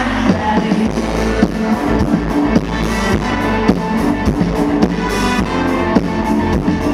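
Live band music played through a concert PA, recorded from within the crowd: a steady drum-kit beat, about two hits a second, with electric guitars.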